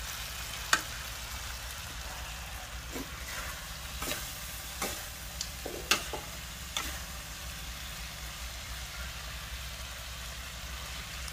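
Eel stir-fry sizzling in a metal wok, with a metal spoon clinking and scraping against the pan several times in the first seven seconds, sharpest about a second in.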